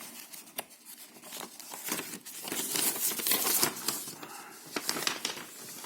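Paper crinkling and rustling, with irregular crackles and sharp clicks, as a paper bill is taken out of the package and unfolded.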